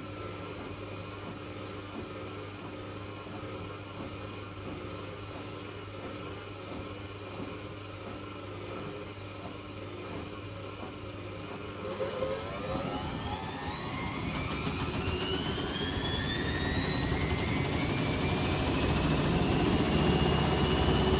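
Servis Quartz 6033 washing machine's motor turning the drum steadily, then, about twelve seconds in, speeding up into a spin with a whine that keeps rising in pitch and getting louder.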